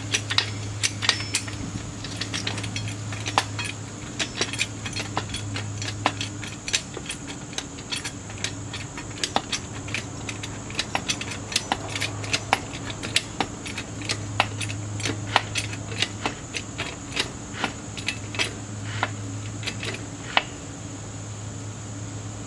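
Irregular sharp metallic clicks and clinks from hand tools and hardware being handled during rear suspension work, about one to three a second, over a steady low hum.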